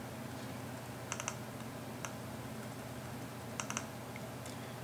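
Faint clicks from working a computer, in two short groups about a second in and again near four seconds, as speed-table sliders are nudged up in decoder programming software. A low steady hum runs underneath.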